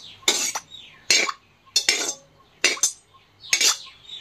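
Perforated metal spoon scraping and knocking against an aluminium kadai, about five short strokes a little under a second apart, as hot mustard oil is spread up the pan's sides before frying.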